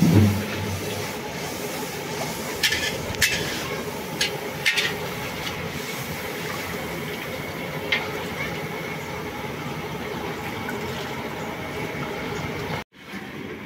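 A large iron kadai of chicken curry cooking over a gas burner, making a steady rushing, bubbling noise. A few sharp knocks and scrapes from the long ladle on the pan come as it is stirred.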